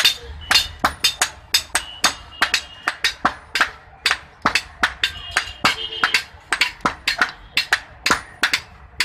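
Blacksmith's hammer striking hot iron on an anvil in quick, uneven blows, about three a second, with short metallic ringing after many strikes.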